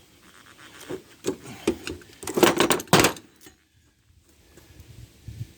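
Metal pieces being handled: a run of knocks and rattling clatter, thickest and loudest about two to three seconds in, then it stops.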